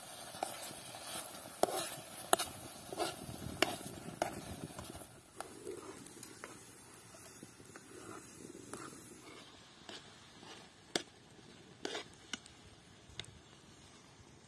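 Slotted metal spoon stirring thick fig jam with walnuts in a metal pot, scraping the bottom and clicking against the side. The clicks come thick and fast for the first few seconds, then only now and then.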